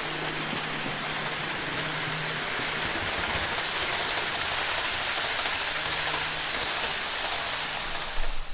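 HO scale Proto 2000 E6A model diesel locomotive running on track pulling a string of model passenger cars: a steady hiss of metal wheels rolling on the rails over a faint low motor hum. The model has no sound system, so this is only its mechanical running noise.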